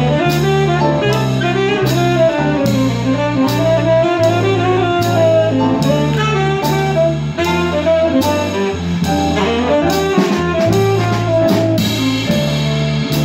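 Live small-combo jazz: a saxophone plays a flowing melodic line over upright bass, piano and drums, with cymbal strokes cutting through.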